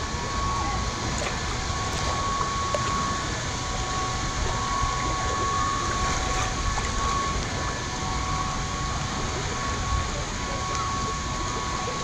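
Lazy-river current swirling and lapping around a camera held at the water's surface, a steady rushing with small splashes, and faint voices in the background. A thin steady high tone comes and goes over it.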